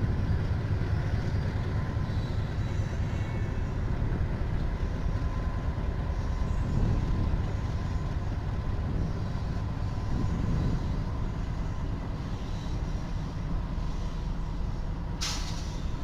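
Train running past a trackside camera: a loud, steady low rumble with a thin, steady whine above it, and a short, sharp hiss near the end.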